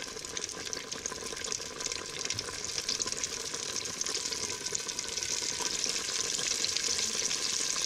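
Battered fish deep-frying in a pot of hot oil: a dense, steady sizzle and crackle of bubbling oil that grows a little louder in the second half.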